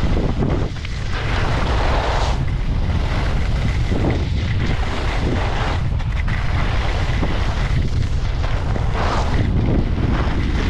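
Wind buffeting a skier's action-camera microphone during a fast downhill run, a steady heavy rumble, with swells of skis scraping the packed snow every few seconds as the skier turns.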